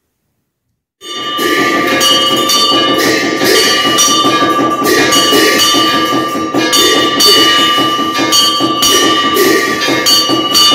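Hindu temple bells ringing during aarti, struck over and over, with a steady ringing tone held underneath. It starts abruptly about a second in.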